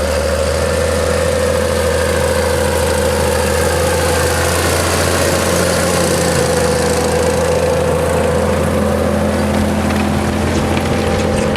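John Deere 7720 tractor's 6.8-litre PowerTech six-cylinder diesel running steadily under load while pulling a plough, with an even, unchanging drone.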